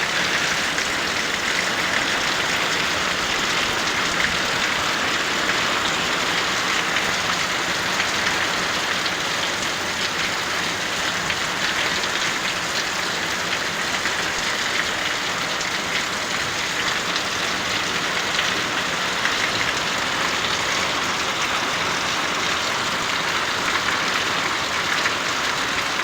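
Heavy rain pouring down in a steady downpour, an even hiss of many drops hitting the ground.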